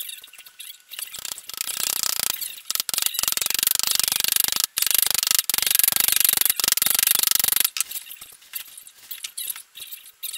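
Fast metallic ratcheting clicks in runs of a second or so with short breaks, from hand-tool work on a steel gearbox casing; sparser knocks and clicks near the end.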